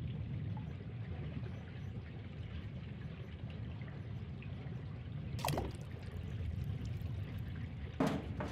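Steady ambience of flowing water with a low rumble underneath. A sharp sound comes about five and a half seconds in, and a sharp knock near the end.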